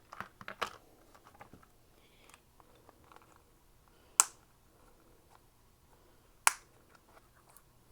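Two sharp clicks about two seconds apart, with light clicking and rustling of small items being handled on a desk before them.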